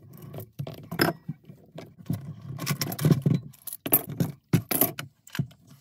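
Bar clamps being fitted and tightened around a stack of small wooden offcuts, with a fast, irregular run of clicks, knocks and clatters of wood and metal clamp parts.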